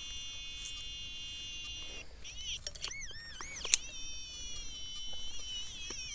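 Electronic tone of a handheld metal-detecting pinpointer. It holds a steady high buzz for about two seconds, then wavers up and down in pitch as the probe is moved over the broken soil near the target. There is one sharp click around the middle.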